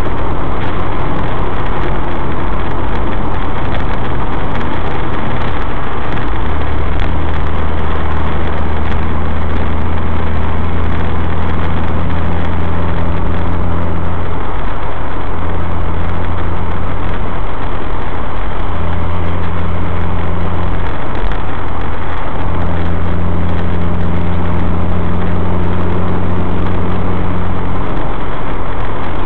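Suzuki SX4's four-cylinder engine breathing through a newly fitted K&N Apollo intake filter while cruising at highway speed, heard from inside the cabin: a steady low engine drone over tyre and road noise. The drone fades and comes back several times as the throttle eases and is applied again.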